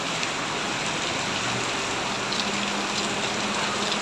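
Heavy rain from a rainstorm pouring steadily, an even, unbroken hiss.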